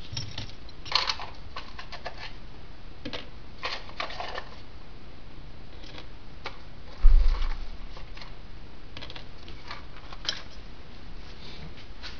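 Small metal parts (nuts, bolts and washers) clicking and clattering as they are picked up and set down on a wooden workbench, with one dull thump about seven seconds in.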